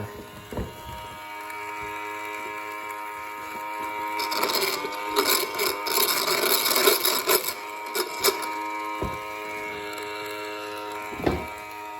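Small 12-volt motor of a mini washing machine running on direct power, with a steady whine and a rattle that gets loud and clattering for a few seconds in the middle, plus a few sharp clicks. The rattling is taken as the sign of a burnt-out, worn motor.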